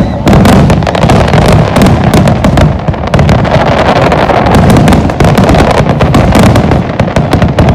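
Fireworks display in a dense barrage: rapid, overlapping bangs and crackles, loud and without a break.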